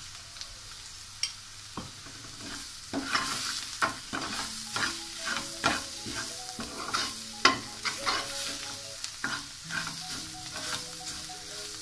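Slotted steel spoon stirring and scraping an onion-and-spice masala frying in oil in a steel pot, with a steady sizzle under irregular scraping strokes.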